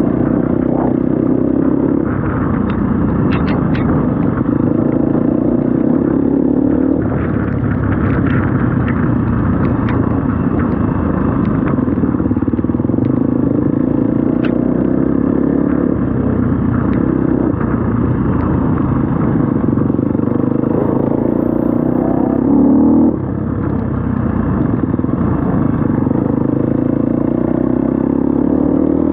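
KTM 250 SX-F four-stroke single-cylinder dirt bike engine running under changing throttle, its pitch rising and falling, with scattered clattering knocks from the bike. A brief harder rev about 23 seconds in, then it eases off.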